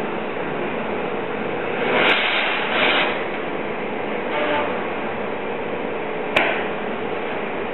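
Glassblowing bench burner hissing steadily, swelling louder three times in the first half, with a single sharp click near the end.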